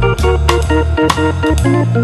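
Background music: sustained chords over a steady beat of about two beats a second.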